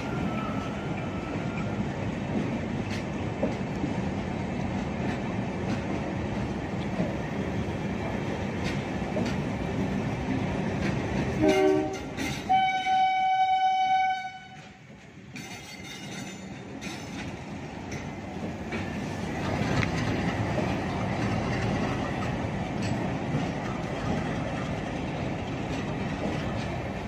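LHB passenger coaches rolling past with a steady rumble and wheel clatter. About twelve seconds in, a train horn sounds, first a short note and then one held for about two seconds, the loudest moment.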